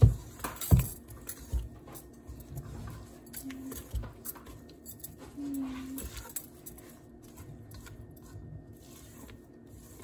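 A spatula folding thick muffin batter in a stainless steel mixing bowl: scattered knocks and scrapes of the spatula against the metal bowl, loudest at the start, with soft squishing of the batter.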